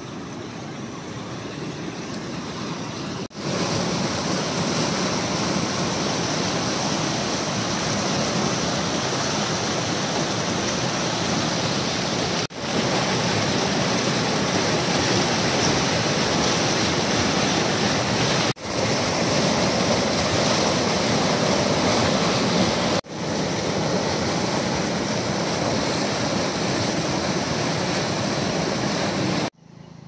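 Waterfall and river water rushing and splashing over boulders: a loud, steady rush of white water, quieter for the first few seconds. It is broken by four brief dropouts where clips are joined, and it cuts off just before the end.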